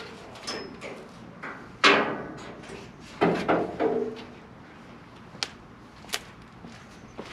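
A wiring harness and its connectors being fed through a car's steel roll cage, knocking against the metal. Two louder metallic clanks, each with a short ring, come about two and three seconds in, followed by a few sharp clicks.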